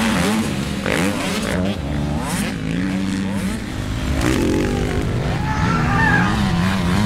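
A person's voice imitating a dirt bike engine: a continuous buzzy drone that rises and falls in pitch like revving.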